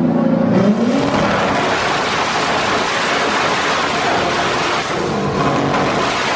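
Car engine revved hard: a steady note that climbs about a second in, then gives way to a loud, rough exhaust noise held for several seconds.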